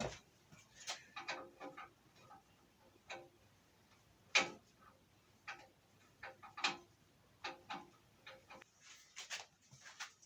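Irregular small metal clicks and clinks, about a dozen sharp taps with a brief ring, the loudest about four and a half seconds in, from handling and fitting the greased engine-mount collar for a Kawasaki ZZR600 frame.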